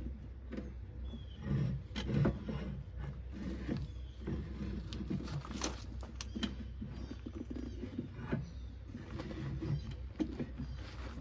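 A new tire being worked onto a motorcycle wheel rim by hand with soapy lubricant: irregular rubber rubbing and scraping with small knocks and clicks of tools against the rim.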